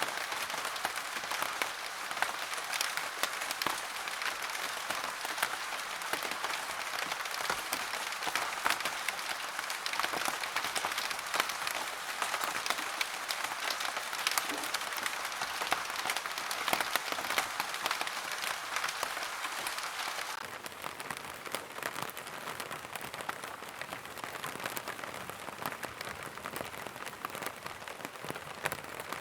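Steady rain falling, a dense hiss made of countless small drop impacts. About two-thirds of the way through it suddenly becomes softer.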